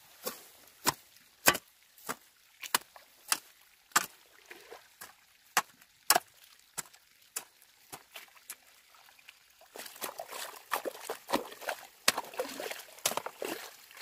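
Steady, evenly paced chopping strikes, about one every 0.6 seconds. About ten seconds in the sound gets busier and louder, with more frequent strikes over a constant background.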